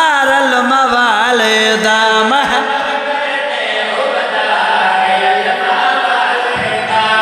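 A man sings a line of devotional verse in wavering melismatic runs. From about two and a half seconds in, a group of voices chants together in response.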